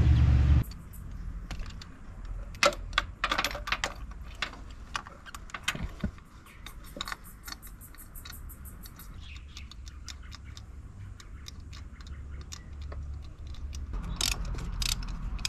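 Light metallic clicks and ticks, irregular and in short runs, from a ratchet and spark-plug socket working a plug into the cylinder head by hand. A low rumble stops within the first second.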